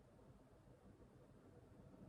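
Near silence: faint low room tone, with no keystrokes or clicks.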